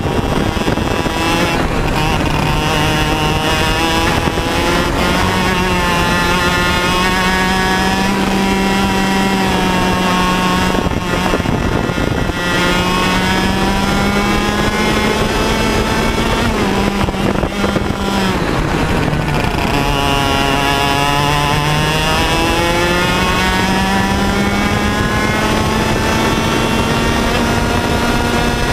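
100cc two-stroke TAG kart engine running hard at racing speed, its pitch climbing slowly along the straights and dropping sharply several times as the driver lifts for corners.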